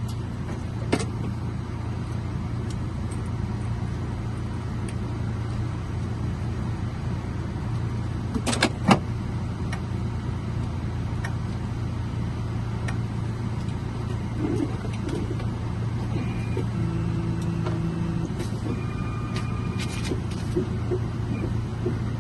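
A car running steadily with a low hum, with a few sharp clicks, the loudest pair about nine seconds in.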